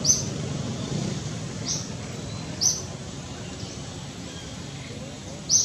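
A bird giving short, sharp high chirps, four in all and spaced one to three seconds apart, over a steady low background rumble.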